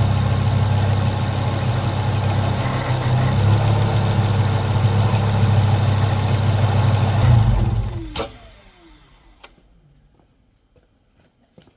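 Ford Focus ST's 2.5-litre turbocharged five-cylinder engine running steadily, then switched off about eight seconds in: the sound winds down in falling pitch with a click, leaving only faint ticks.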